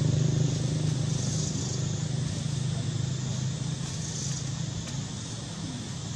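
A motor vehicle engine running steadily nearby as a low hum, fading over the first few seconds and coming back near the end. A high buzz swells and fades about every three seconds above it.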